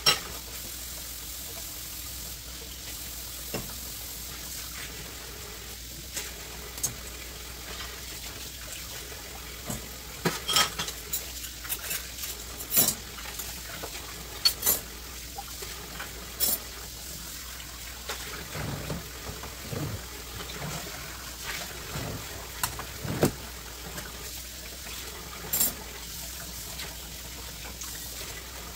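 Dishes being washed by hand at a kitchen sink: tap water running steadily, with sharp clinks of dishes and cutlery every few seconds and a few dull knocks in the second half.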